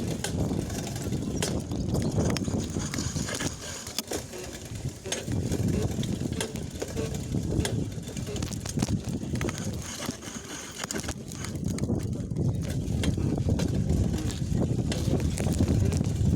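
Bicycle being ridden, with a steady rumble of wind and motion on the microphone and repeated sharp clicks and knocks from a pedal catching as it turns, a quirk of this bike.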